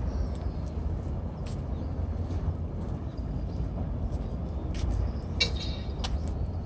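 Outdoor seaside ambience: a steady low wind rumble on the microphone, with light scattered clicks of footsteps and a short high chirp about five and a half seconds in.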